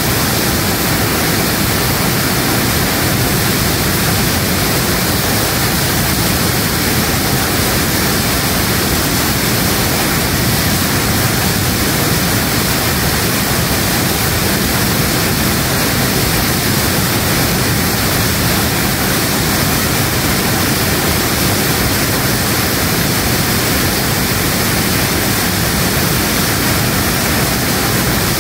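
Waterfall in flood: a loud, steady rush of whitewater pouring over and around boulders.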